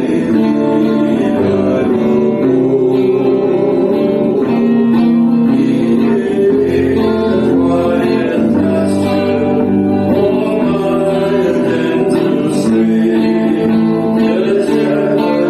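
Music: a song with guitar accompaniment and singing.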